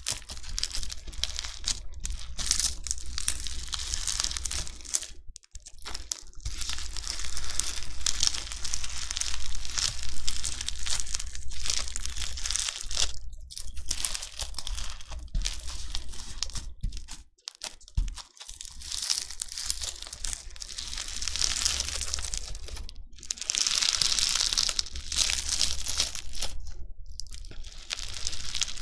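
Crunchy bingsu slime, packed with small plastic beads, being squished and worked, giving a dense, continuous crackling crunch broken by short pauses every few seconds.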